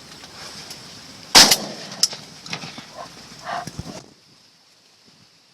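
A loud sharp bang with a brief ringing tail about a second in, then a smaller crack and a few lighter knocks, over a steady high chirring of insects. The sound cuts off abruptly near the end, leaving only the faint insect chorus.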